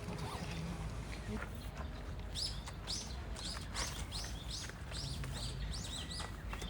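Small birds chirping: a quick run of short, repeated high chirps, about two a second, starting about two seconds in, over faint outdoor background noise.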